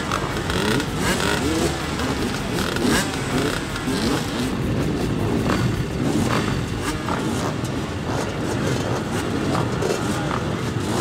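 A pack of motocross dirt bikes running together on the start line: a steady engine din, with several engines revving up and down over it.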